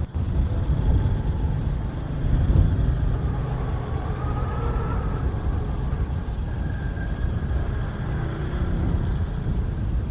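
Wind blowing hard across the microphone: a steady, uneven low rumble with gusts, and faint wavering whistles above it.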